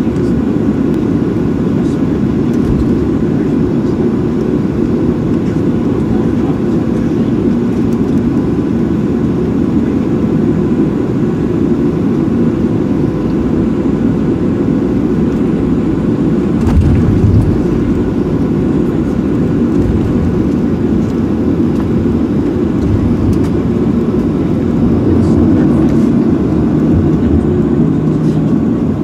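Steady engine and air noise of a Southwest Airlines Boeing 737-700 heard from inside the passenger cabin, a loud even rumble with a faint steady hum over it. A single bump or knock comes about 17 seconds in.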